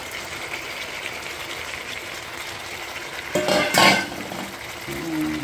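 Chicken pieces sizzling steadily in a hot wok as chopped tomatoes are tipped in from a stainless steel bowl. About three and a half seconds in there is one loud knock with a brief ringing.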